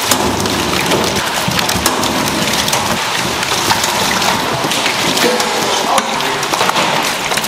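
Live freshwater eels tipped from a scoop net into a stainless-steel bin, writhing and slithering over each other in water. It is a dense, continuous wet patter full of small sharp clicks, like rain on a surface.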